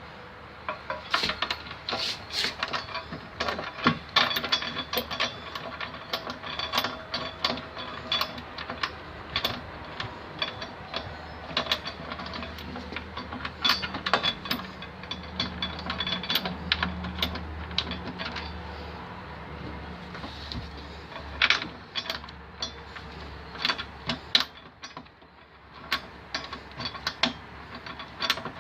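Socket ratchet wrench clicking in quick runs, driving bolts to fasten a trailer hitch to the vehicle. A low hum runs underneath through the middle stretch.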